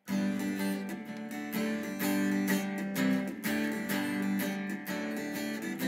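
Acoustic guitar strummed in a steady, brisk rhythm: the instrumental intro to a folk song, with no singing yet.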